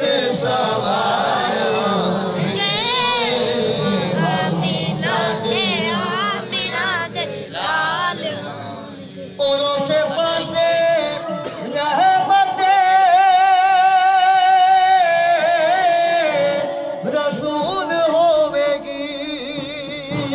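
A man singing a Punjabi naat into a handheld microphone, in ornamented, wavering phrases. He breaks off briefly about nine seconds in, then holds a long, quavering note from about twelve to fifteen seconds in.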